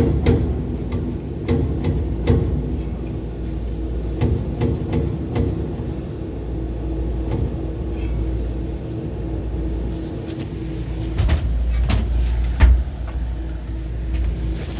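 Condenser fan motors running with a steady hum and low rumble, broken by irregular clicks and knocks, the sign of bad fan bearings.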